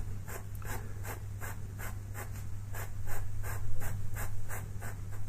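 Pastel pencil scratching on pastel paper in quick back-and-forth shading strokes, about three a second, over a steady low hum.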